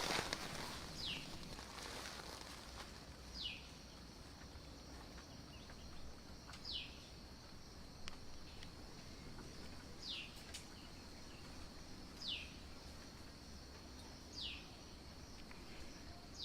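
A bird repeats a short whistled note that falls in pitch, about once every two seconds, over a steady high drone of insects such as crickets.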